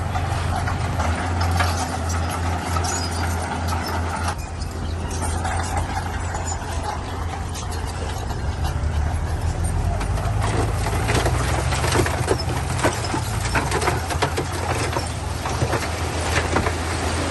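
Bulldozer's diesel engine running steadily, with frequent clanks and rattles that grow thicker in the second half.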